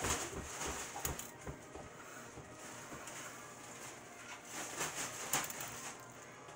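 Quiet room noise with a few light taps and rustles from hands dropping sugar sprinkles onto frosted cupcakes; the clearest taps come about one second in and around five seconds in.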